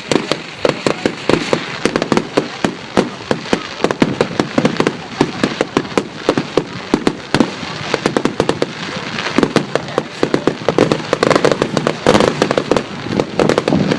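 Fireworks exploding in quick succession: a steady stream of sharp bangs and crackling reports, growing busier in the second half.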